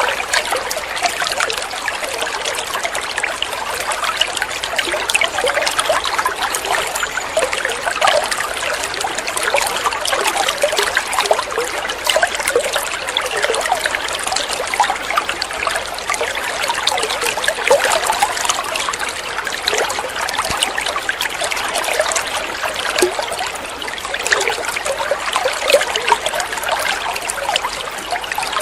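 Water running and trickling steadily, a dense patter of small splashes and bubbling with no pauses.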